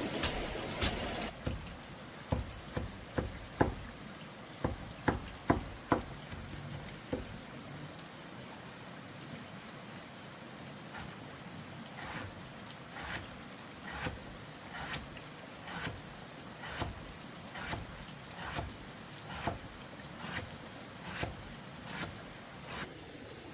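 Repeated sharp knocks: an irregular run of them in the first few seconds, then a steady series about once a second in the second half.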